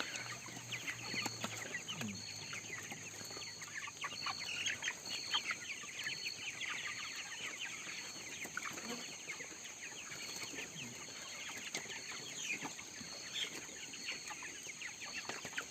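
A crowded house of three-week-old broiler chickens, many birds peeping and chirping at once, with a faint high tone pulsing about once a second.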